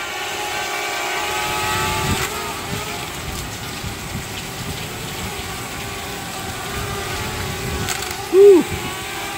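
DJI Spark quadcopter hovering, its small propellers giving a steady multi-tone whine over the hiss of heavy rain. About eight seconds in comes a brief, loud vocal whoop.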